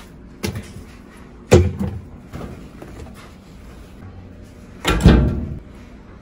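Knocks and thuds from a GE top-loading washing machine being loaded with detergent pods and clothes: a few separate bumps, the loudest about a second and a half in and about five seconds in.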